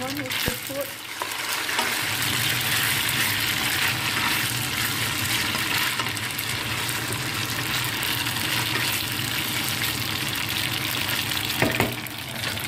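Spaghetti and chicken pieces frying in a nonstick pan: a steady sizzle, with a low steady hum underneath. Two short knocks, one about half a second in and one near the end.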